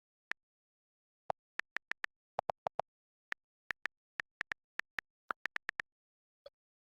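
Computer mouse clicks, about two dozen sharp separate clicks against dead silence. They come singly and in quick runs of several a second, some higher in pitch and some lower.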